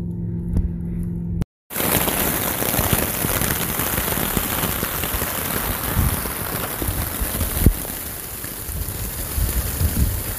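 Steady rain falling on a tarp shelter overhead, an even dense hiss. It starts after a brief steady low hum that cuts off about a second and a half in.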